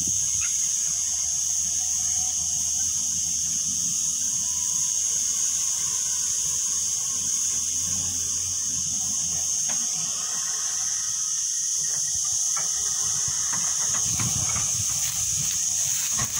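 A steady high-pitched buzzing hiss, the loudest sound throughout, over the low hum of a backhoe loader's diesel engine working at a distance, with a few faint knocks near the end.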